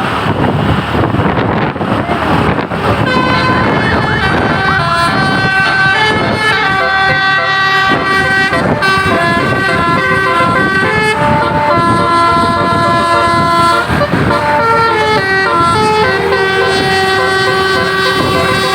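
Tour bus's Telolet Basuri musical horn playing a tune of held, stepping notes from several horns at once, starting about three seconds in after a rush of vehicle noise.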